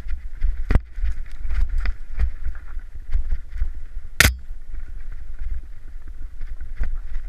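Mountain bike ridden fast downhill over a rocky trail: the tyres run over loose stone and the bike rattles and knocks with many short clicks, over a steady rumble of wind on the microphone. One much louder sharp clack a little past the middle.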